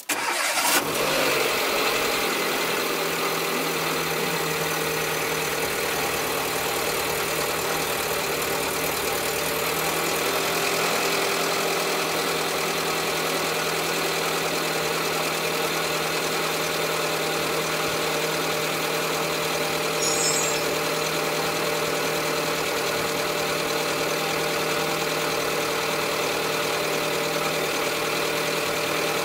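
Renault Clio III engine starting and settling straight into a steady idle, running through a newly replaced intermediate (middle) exhaust section.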